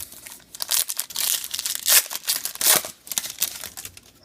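Plastic wrapper of a Topps trading card pack being torn open and crinkled in the hands: a run of crackling rustles for about three seconds, then it settles.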